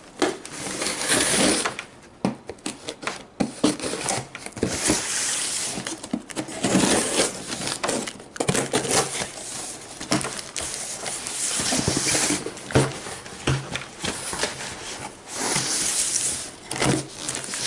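A knife slitting the packing tape on a cardboard box, with tape ripping, cardboard scraping and the flaps being pulled open: irregular scratches, rasps and knocks.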